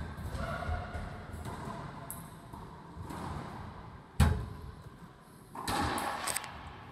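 Racquetball court: shoes squeak on the hardwood floor, then about four seconds in a racquetball strikes the court with one loud, sharp smack that echoes off the walls.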